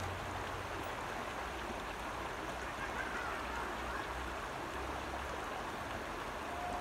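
Shallow creek water running steadily over a gravel and stone bed, a constant rushing hiss.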